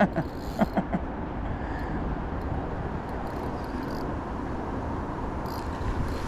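Steady rumbling wind noise on the microphone, with a few short knocks in the first second.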